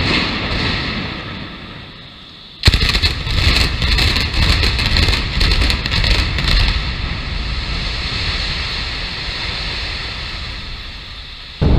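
Building implosion: the explosive demolition charges fire in a rapid string of sharp blasts starting about two and a half seconds in, lasting about four seconds. The high-rise then collapses with a long, deep rumble that slowly fades.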